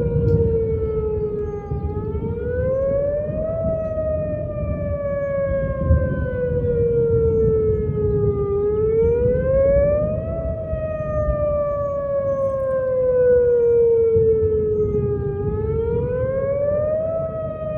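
Outdoor warning siren sounding for a severe thunderstorm warning. It wails in a repeating cycle, its pitch rising for a second or two and then falling slowly, about every seven seconds.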